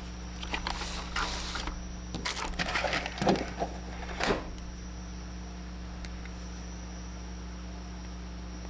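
Clicks and rustles of a small plastic toy and its packaging being handled, busiest in the first four and a half seconds. A steady low hum continues alone after that.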